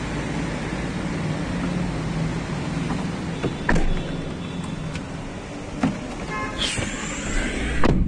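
A vehicle's steady engine hum, broken by several sharp knocks and clunks, with a short squeak that rises and falls about two-thirds of the way through.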